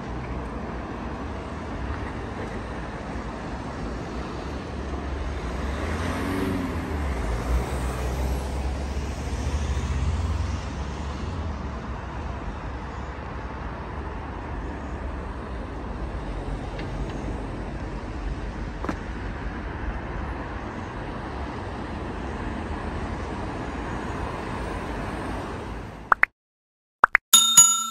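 Road traffic: a steady hum of cars passing on a wide city road, with a heavier vehicle's low rumble going by about a quarter of the way in. Near the end the street sound cuts off and a few quick clicks end in a bell-like ding from a subscribe-button animation.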